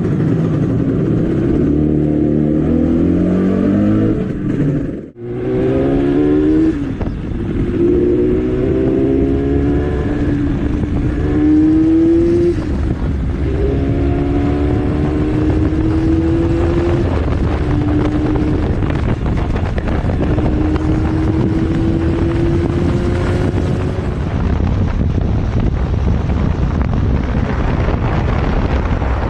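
Yamaha RD350 air-cooled two-stroke twin riding hard, its pitch climbing and then dropping again and again as it is shifted up through the gears. There is a brief dropout about five seconds in. Later the engine tone fades into a steady rush of wind and road noise.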